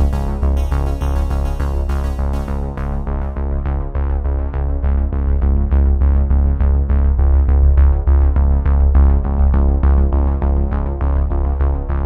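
Electronic synthesizer music with a steady beat over heavy bass; the bright top end drops away about three seconds in.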